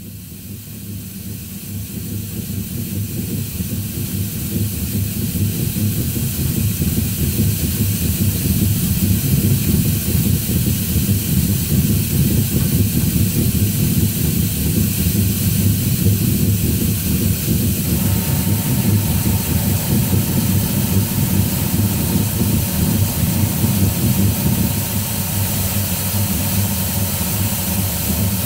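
Lathe-mounted slotting attachment, driven by a worm-gear motor, running and cutting splines in a bore. A low mechanical rumble sits under a strong steady hiss from the air-and-coolant mist spray. The sound builds over the first several seconds, and a faint steady whine joins about two-thirds of the way through.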